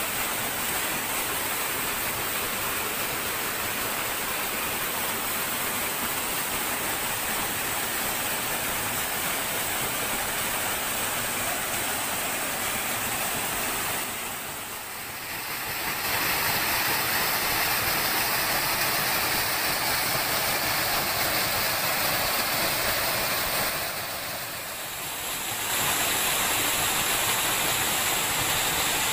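Small forest waterfall and stream: a steady rush of water spilling over rocks. The sound dips briefly twice.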